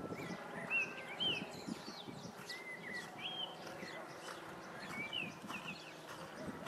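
Small birds chirping in short, curved, up-and-down calls that come in clusters, over soft irregular thuds of a horse's hooves cantering on sand.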